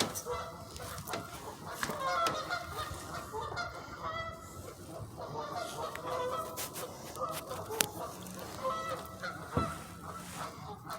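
Geese honking, calling back and forth in repeated bouts of honks.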